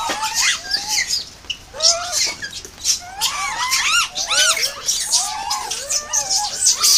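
A troop of macaques calling: many short, arched squeaks and coos overlapping, thickest about three to four and a half seconds in.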